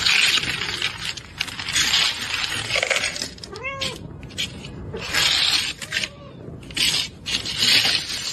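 A cat hissing in about five loud bursts, with a couple of short yowls in between.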